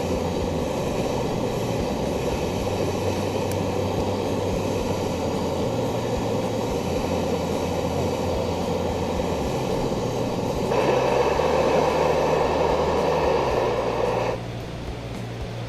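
Propane-butane canister camp stove burner running with a steady roar. It gets louder for a few seconds near the end, then drops abruptly to a quieter level.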